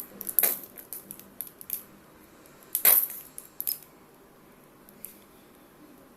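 Scattered small clicks and taps of a hard plastic bottle being handled and squeezed to force out green paint that comes only drop by drop, with one sharper knock about three seconds in.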